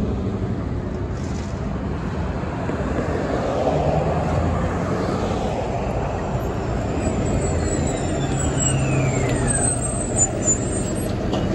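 A diesel city transit bus approaches and pulls up close with its engine droning. A high whine falls in pitch as it slows to a stop, and there are a couple of short sharp sounds just after it draws alongside.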